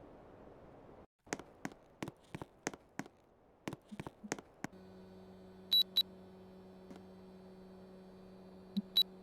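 A run of sharp clicks, then about halfway through an air conditioner switches on with a steady hum. Its control panel gives two short high beeps soon after, and two more near the end.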